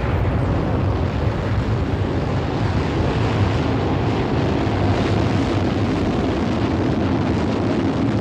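Atlas-Centaur rocket's engines at liftoff: a loud, steady, deep rumble of rocket exhaust that holds evenly throughout.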